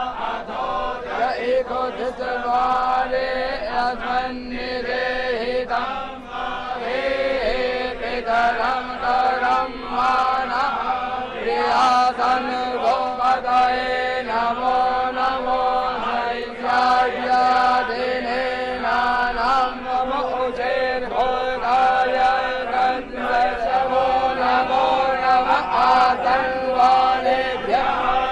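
Priests chanting Sanskrit mantras in a steady, droning recitation during the abhishek of a Shiva lingam.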